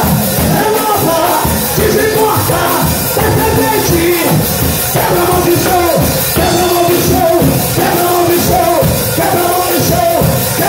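Loud, dense worship music through the church's amplification, a voice singing long held notes over the accompaniment.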